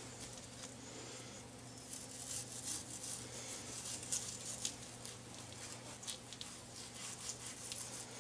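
Faint scratchy crackles and ticks of a sharp knife slicing the fat cap off a raw prime rib roast, with gloved hands handling the meat on a wooden cutting board, over a low steady hum.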